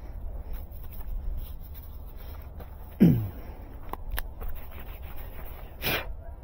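Light handling noises under a low steady rumble; a sharp thump with a quickly falling pitch about three seconds in, and a short rustle near the end.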